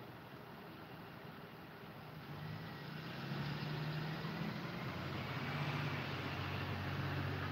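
School bus engine running as the bus pulls away, growing louder about two seconds in and then holding a steady low drone.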